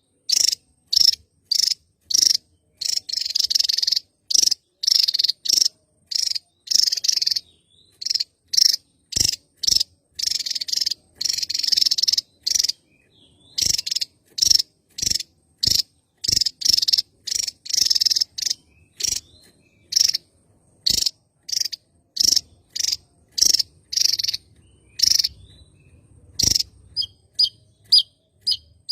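Javan tesia singing: a long run of short, high, sharp notes about two a second, broken by a few longer, denser phrases.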